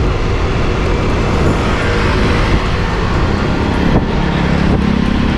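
Steady motor-vehicle rumble with heavy low-end noise, a low engine hum coming up near the end.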